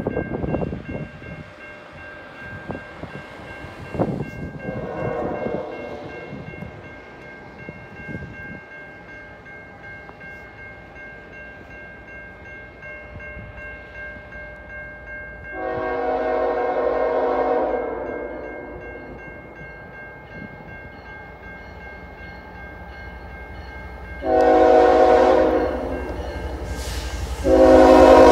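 Nathan K5HL five-chime horn on an approaching GE Evolution-series diesel locomotive: a faint blast about five seconds in, a long blast around the middle, then two much louder blasts near the end as the train draws close, over a rising rumble from the locomotive and train.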